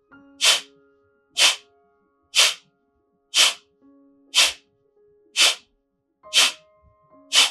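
Kapalbhati breathing: sharp, forceful exhalations through the nose, about one a second, each a short puff with a quick pull-in of the belly. Soft background music with long held tones plays underneath.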